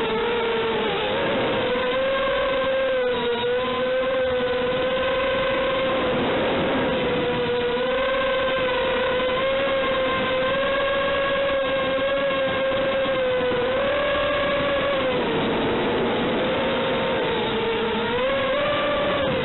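FPV multirotor drone's motors and propellers whining steadily, the pitch rising and dipping a little with throttle changes.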